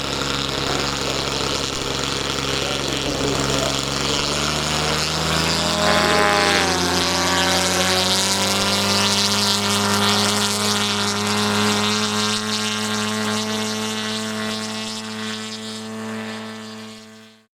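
Propeller aircraft engine running steadily. Its pitch rises about six seconds in and then holds, and the sound cuts off abruptly at the end.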